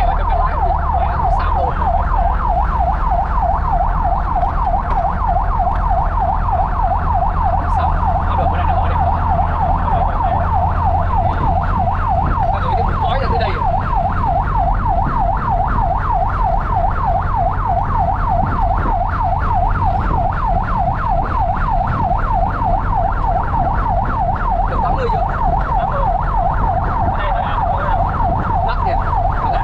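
Fire truck's siren on a fast yelp, a rapid up-and-down wail repeating steadily without a break. It is heard from inside the cab over the low rumble of the truck's engine.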